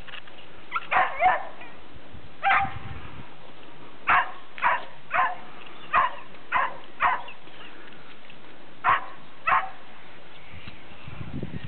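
Young working kelpie barking: about a dozen short, sharp barks in irregular groups, stopping near the end.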